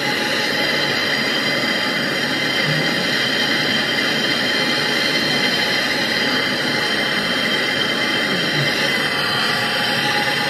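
MAPP gas torch flame burning with a steady, even hiss while it heats a copper tube for brazing.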